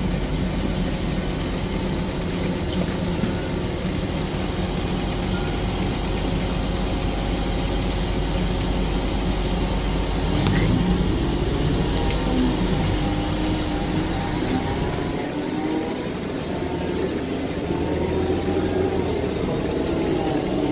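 Steady engine and road noise of a city bus, heard from inside the passenger cabin. In the second half a faint whine glides up and down in pitch as the bus changes speed.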